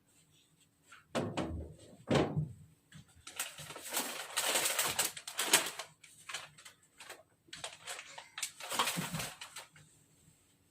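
Handling sounds at a clothes dryer: two low knocks, then two longer stretches of rustling and scraping as the lint filter and laundry are handled.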